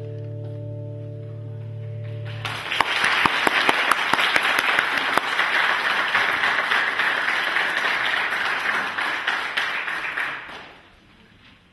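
A band's final chord is held and stops about two and a half seconds in. A church congregation then applauds for about eight seconds, and the clapping fades away near the end.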